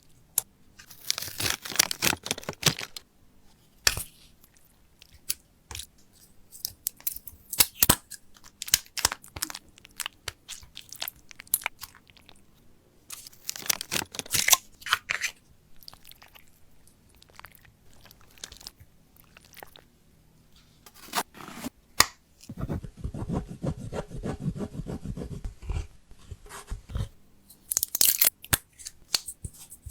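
Slime being squeezed, poked and stretched by hand, giving irregular crackles, pops and crunchy clicks in clusters, with a denser, fuller squishing stretch about two-thirds of the way through.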